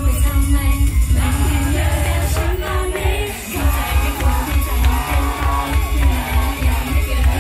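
Live J-pop-style idol song played loud through a hall PA: female vocals singing into handheld microphones over a heavy bass beat. The bass drops out for about half a second around three seconds in, then comes back.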